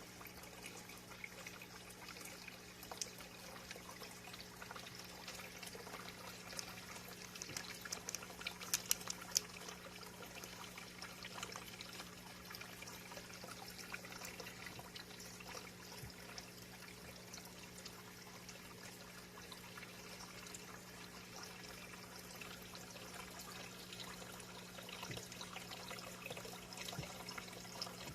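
Faint, steady water trickling over a constant low hum, with a few light clicks about eight seconds in.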